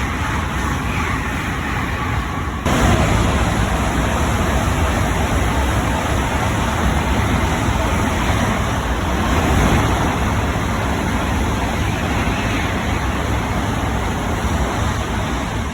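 Shinkansen bullet train passing through the station at speed without stopping: a loud, steady rush of noise that jumps up suddenly about three seconds in.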